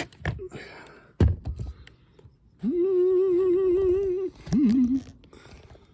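A man humming: one held note with a slight waver, lasting under two seconds, then a short two-note phrase. A single thunk from handling tools or the part comes about a second in.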